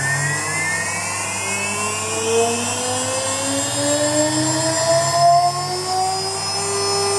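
6040 CNC router milling 4 mm Delrin with a small end mill: the spindle gives a steady high whine over the cutting noise. Several stepper-motor tones glide slowly upward in pitch as the axes move along the toolpath.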